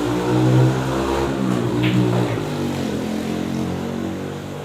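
A motor vehicle engine revving close by. It is loudest about half a second in, then its pitch falls away as it fades.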